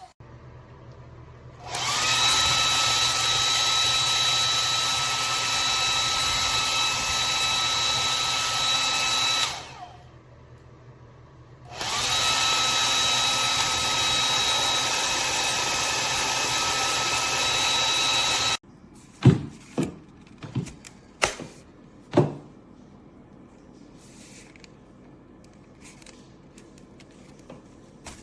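Ionic hair dryer switched on and run twice, each time for about seven seconds: a steady rush of air over a high motor whine that spins up at switch-on and winds down at switch-off. Afterwards a few sharp clicks and knocks.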